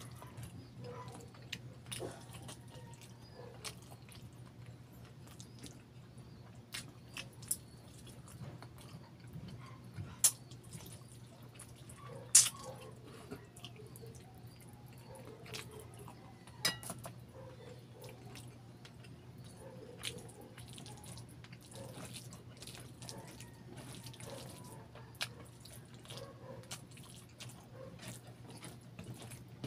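Close-miked wet eating sounds: chewing and lip smacking on saucy barbecued chicken and rice, with scattered sharp wet clicks, the loudest about 10 and 12 seconds in, over a steady low hum.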